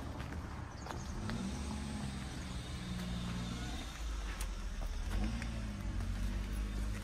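A motor vehicle's engine running, a steady low rumble whose pitch rises and falls a little.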